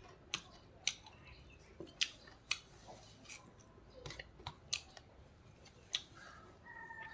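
Close-miked eating sounds: irregular sharp clicks and smacks, roughly two a second, from chewing and from fingers mixing rice on a steel plate. A rooster starts crowing in the background near the end.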